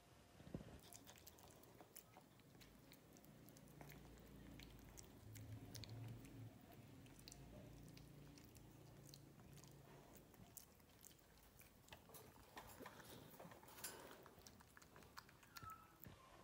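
Faint, near-silent clicking and gnawing of a puppy's teeth on the wire bars of a dog crate, with a faint low hum for a few seconds in the middle.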